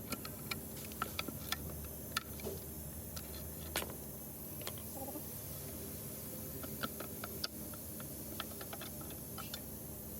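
Scattered light clicks and taps of metal parts and hand tools being handled during a transfer case rebuild, irregular and about fifteen in all, over a steady low hum.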